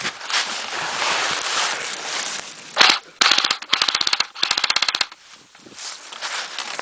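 Airsoft gun firing on full automatic: a single sharp shot, then three quick bursts of rapid shots, about sixteen a second.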